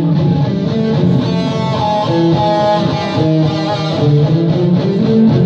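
Live music led by an electric guitar playing held notes.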